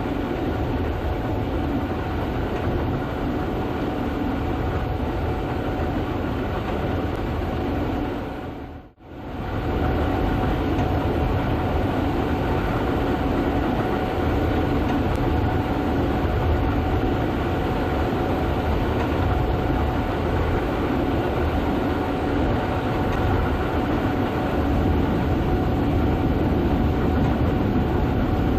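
Gleaner S98 combine harvester running steadily while harvesting soybeans: a constant mechanical rumble with a steady whine over it. The sound cuts out for a moment about nine seconds in, then resumes.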